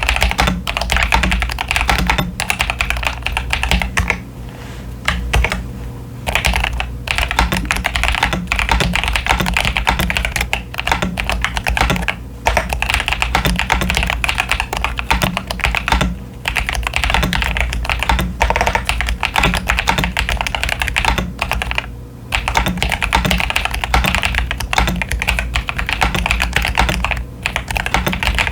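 Typing on a modded CIY Tester 68 mechanical keyboard with Akko Lavender Purple pre-lubed switches and Cherry-profile PBT keycaps. A fast, steady run of key presses, broken by a few short pauses.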